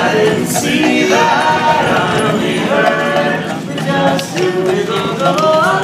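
Barbershop quartet singing a cappella in close harmony, several men's voices holding chords and moving together from one chord to the next.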